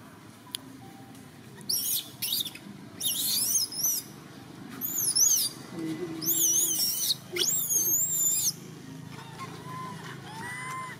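Baby long-tailed macaque screaming: shrill, wavering high-pitched cries in about five bouts, with fainter, lower rising calls near the end. It is the crying of a baby begging to nurse and being refused by its mother.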